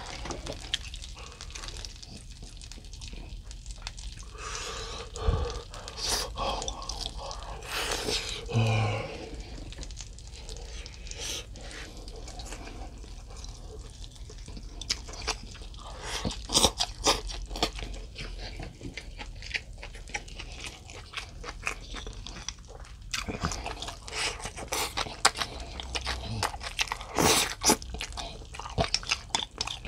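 Chewing mouthfuls of grilled mackerel and rice, with wooden chopsticks clicking now and then against the grill plate and bowl.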